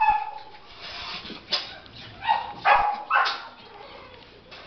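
Dogs barking, about five short separate barks.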